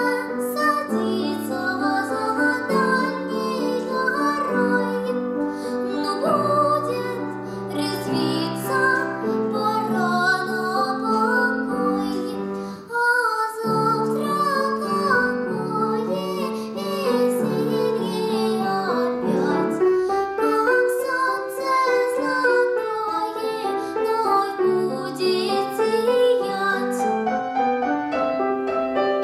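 A young girl singing in academic (classical) style with a wavering voice, accompanied on piano. Her voice breaks off briefly about 13 seconds in, and her phrase ends near the end while the piano plays on.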